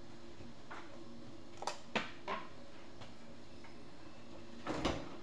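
Kitchen handling noises: a few short, sharp knocks and clicks, about four in the first half and a louder pair near the end, the kind made by dishes, drawers or cupboard doors being moved, over a faint steady hum.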